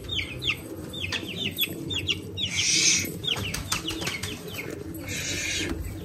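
Birds chirping over and over in short, quick falling notes, with two brief rushes of wing flapping, one about two and a half seconds in and one near the end.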